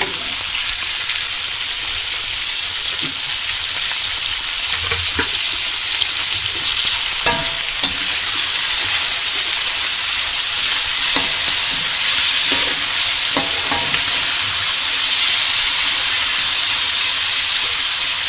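Peas, onion and chopped tomatoes frying in hot oil in a steel kadhai: a steady sizzle that grows a little louder, while a slotted metal spatula stirs and now and then clicks against the pan.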